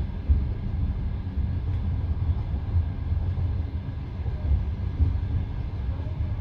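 Passenger train carriage in motion, heard from inside the car: a steady low rumble of wheels on the rails, with one sharp knock near the start.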